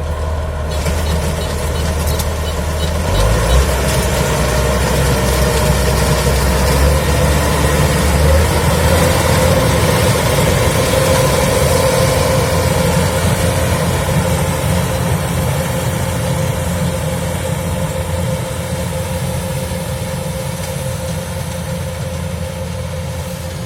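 Kubota DC-105X combine harvester running at work, a steady mechanical drone with a constant whine over it. It grows slightly louder toward the middle and eases off near the end.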